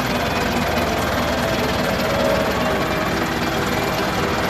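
A stopped minibus's engine idling steadily, with a fast, even pulse low down.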